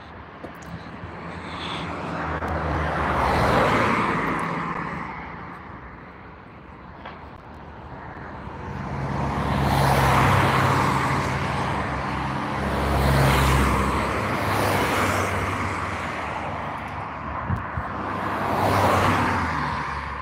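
Road traffic: cars passing one after another on a multi-lane road, each a rush of tyre and engine noise that swells and fades, about five passes in all.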